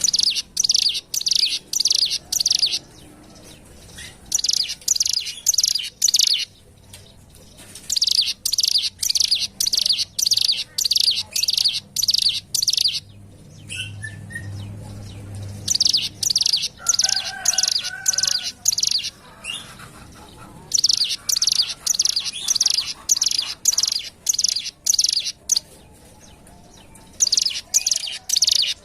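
Ciblek gunung, a prinia, singing in loud phrases of fast, evenly repeated high chipping notes, about six bursts of two to three seconds each with short pauses between. It is a lure song played to get captive birds singing.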